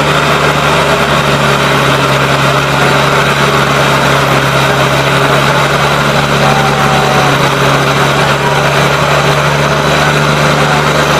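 Diesel engines of two farm tractors, a Swaraj 855 and a Mahindra Arjun 605, running hard at steady high revs as they pull against each other in a tractor tug-of-war. The sound is loud and unbroken.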